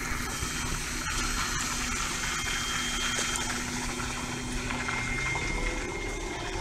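Large truck running with a steady rushing noise and a low hum, which fades about five seconds in.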